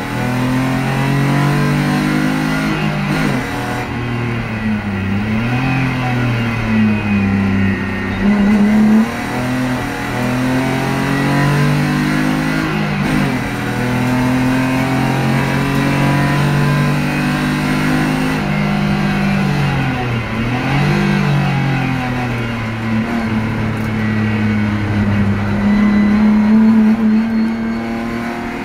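BMW E30's M50 straight-six engine heard from inside the cabin at full effort on track, its pitch climbing under acceleration and falling back again and again, with a few sharp drops at gear changes and braking.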